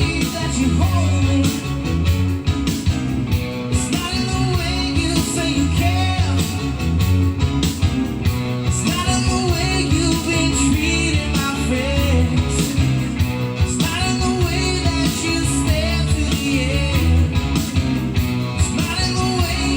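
Rock-style song with guitar, a strong pulsing bass and singing, played loud through an MT-12A 12-inch active speaker under sound test.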